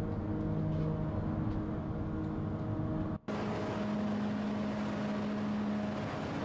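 Hydraulic open-die forging press running as it squeezes a hot steel billet: a steady mechanical hum with a few held tones. The sound cuts out briefly about three seconds in, then resumes with a stronger low tone.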